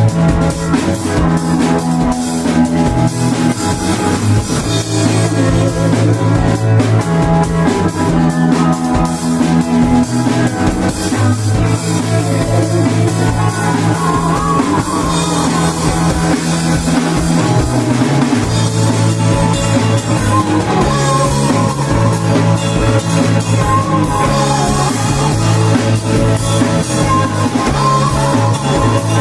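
Live rock band playing an instrumental passage: a drum kit keeping a steady beat under guitars and sustained low bass notes, with no singing.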